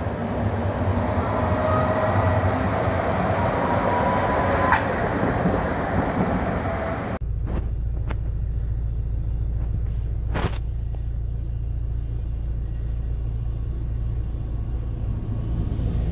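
Tram running on rails. For the first seven seconds it is a loud, noisy run with faint squealing tones; after a sudden change it becomes a lower, steady rumble with a few sharp clicks.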